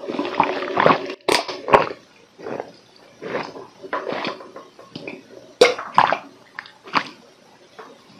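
A man gulping down a large glass of cold brew black coffee without stopping, close to the microphone: about a dozen wet swallows, closer together in the first two seconds, then roughly one every half second to second.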